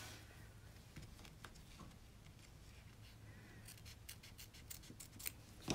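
Small curved scissors faintly snipping through vinyl, trimming close around the stitching of an embroidered appliqué; the quick snips come thickest in a run in the second half.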